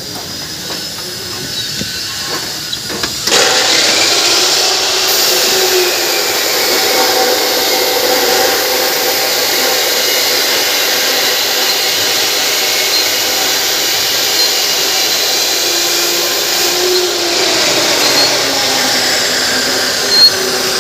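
Loud, steady machine noise, a hiss with several steady whining tones, that starts suddenly about three seconds in.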